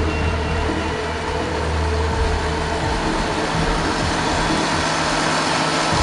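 John Deere 8295R tractor's six-cylinder diesel engine running steadily under load while pulling a big plough. A deep engine hum is strong for about two seconds and then weakens, as a broad rushing noise grows.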